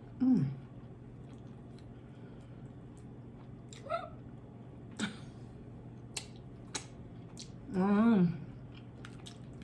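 Close-miked eating sounds: chewing with scattered sharp mouth clicks and smacks. There is a short hummed vocal sound right at the start and a longer, wavering hum with the mouth closed near the end.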